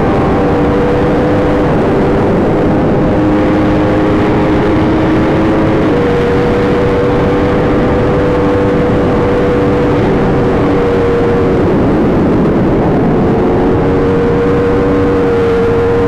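Yamaha R1 sportbike's inline-four engine running at fairly steady revs while riding, with heavy wind rush. The pitch shifts in small steps a couple of times, then drops and climbs again about three-quarters of the way through.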